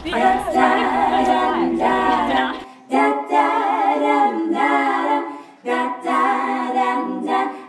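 Women's voices singing a cappella in close harmony, a short jingle in several phrases with brief breaks between them, the last phrase fading out near the end.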